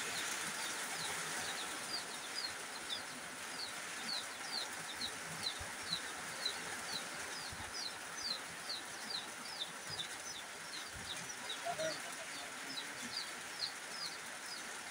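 Heavy rain falling steadily, with a short high chirp repeated about two or three times a second throughout.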